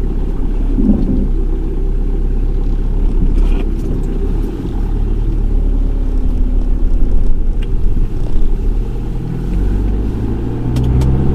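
A heavily overloaded truck driving, its engine and road noise making a steady low rumble, with the engine note coming up near the end.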